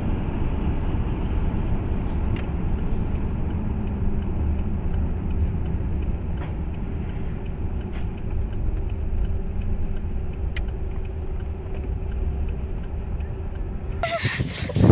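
Steady low rumble of a car's road and engine noise heard from inside the cabin through a dashcam's microphone. About a second before the end it gives way abruptly to a louder, rougher noise.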